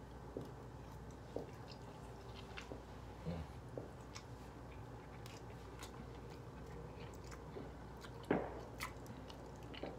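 A person chewing a mouthful of shrimp fettuccine alfredo, a quiet wet chewing with small scattered clicks. There is one brief louder sound about eight seconds in.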